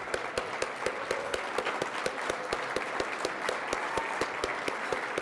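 Audience applauding steadily, with one person's hand claps close to the microphone at about five a second.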